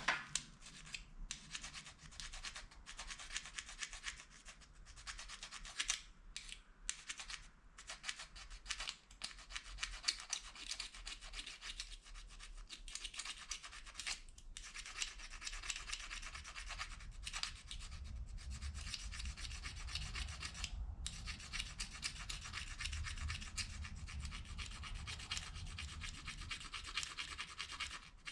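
Plastic fork scraping and rasping against the edge of a plastic spoon in repeated strokes, the scraping becoming denser and more continuous about halfway through.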